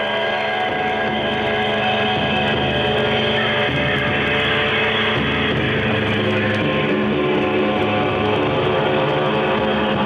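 Instrumental drone music: many layered sustained tones over a low droning bass that shifts pitch several times.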